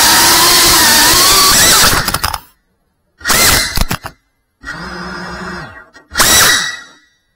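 FPV racing drone's brushless motors whining at high throttle, rising in pitch, then cutting out about two seconds in. They come back in three short throttle bursts with silent gaps between them.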